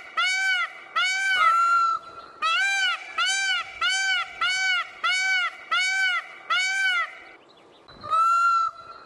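Peacock calling in a quick series of rising-and-falling calls, about two a second, with a longer level-pitched call about one and a half seconds in. A short pause comes near the end, followed by another longer call.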